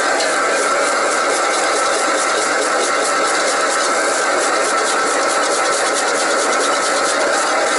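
Wok station burner running steadily under a wok of fried rice that sizzles, while a steel ladle scrapes and pushes the rice around the wok.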